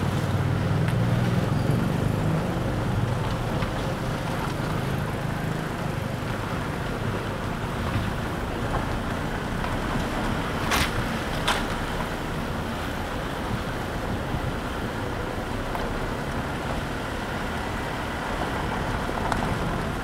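Steady road and engine noise heard from inside a car driving on a wet road, with a heavier low rumble in the first few seconds. Two short sharp clicks come about halfway through.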